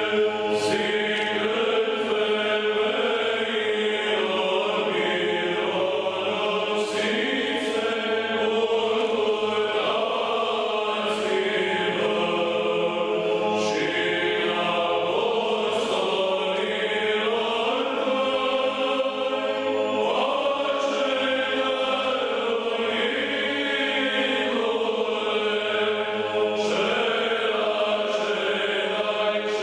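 Background music: a choir singing slow, sustained church chant.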